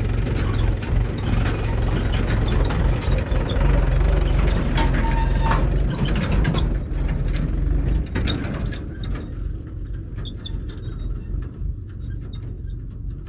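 Farm tractor engine running with a low steady hum, loudest in the first half and fading from about eight seconds in as the tractor moves off.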